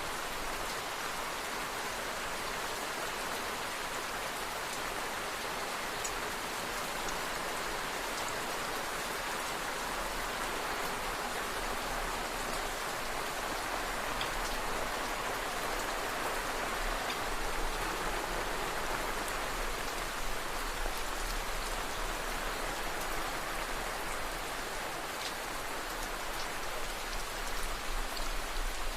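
Steady rain falling, an even hiss of many drops with the odd single drop ticking out above it.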